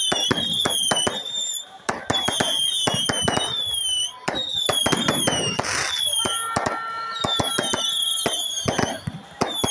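Fireworks going off in quick succession: a dense run of sharp crackles and bangs, mixed with repeated high whistles that each fall in pitch.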